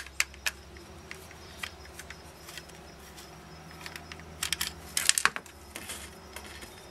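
Small screwdriver backing screws out of the plastic goggle housing: faint scattered clicks and scrapes, with a few sharper clicks about five seconds in.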